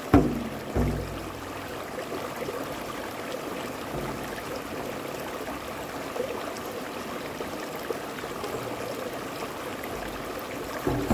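Shallow rocky stream running steadily. Two low, ringing frame-drum strikes in the first second, and another strike near the end.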